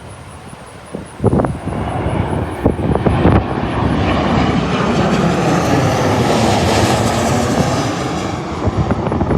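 Southwest Airlines Boeing 737 jet flying low overhead on landing approach: the engine noise builds from about a second in, is loudest and hissiest about six to seven seconds in as it passes over, then begins to fade. Strong wind buffets the microphone, loudest in a few gusts in the first few seconds.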